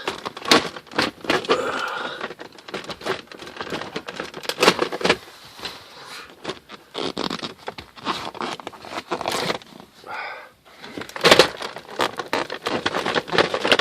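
Plastic center console of a 2009 Mazda MX-5 Miata being pried and worked loose by hand: irregular scraping with many sharp clicks and knocks of plastic trim.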